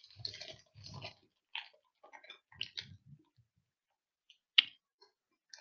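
Close, quiet chewing of a soft licorice twist into a headset microphone: irregular wet mouth and chewing sounds, then a single sharp click about four and a half seconds in.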